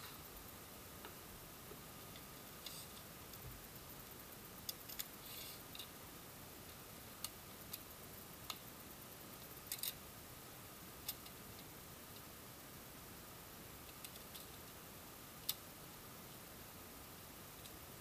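Scattered light clicks and taps from hands handling a USB microphone and a steel tape measure, about a dozen in all, the sharpest about three-quarters through, over a steady faint hiss.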